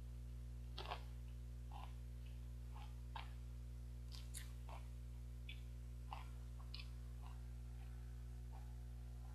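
Pringles potato crisps being bitten and chewed: faint, irregular crisp crackles over a steady low electrical hum.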